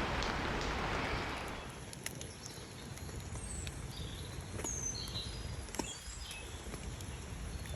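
Woodland background: a steady hiss for the first second and a half drops away, leaving scattered small clicks and a few short bird chirps.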